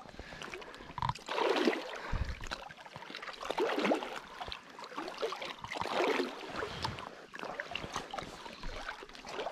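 Water sloshing and swishing around a float tube as it is kicked along with swim fins, swelling in surges about every two seconds.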